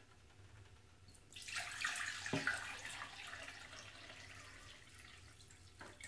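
Water poured from a dehumidifier's plastic water tank into a glass measuring jug, starting a little over a second in, strongest early and tapering off towards the end, with a single click partway through.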